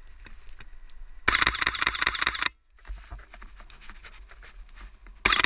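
A camera's shutter firing in rapid continuous bursts. One burst of about a second starts a little over a second in, and a second burst starts near the end.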